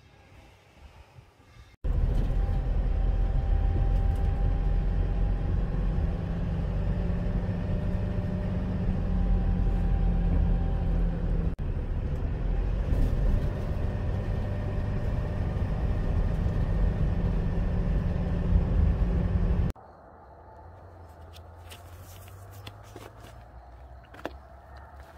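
Car being driven, heard from inside the cabin: a steady low rumble of engine and road noise that starts suddenly about two seconds in and cuts off suddenly after about eighteen seconds. Quieter outdoor ambience with a few light knocks follows.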